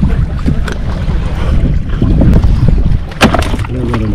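Wind buffeting the microphone on a small fishing boat at sea, a steady low rumble, with a sharp knock about three seconds in.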